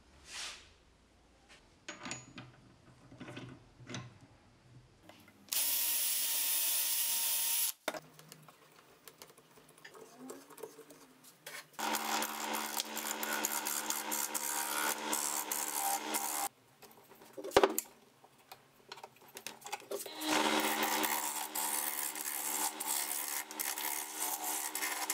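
Wood lathe running while a hook tool hollows the end grain of a spinning wooden blank: a steady motor hum under a dense scraping cut, in two passes about five seconds each, with a sharp click between them. Earlier come a few light knocks and a couple of seconds of loud steady hiss.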